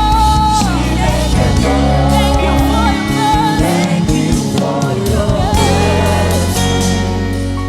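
Live gospel worship music: a singer's voice over sustained bass and keyboard chords with backing voices.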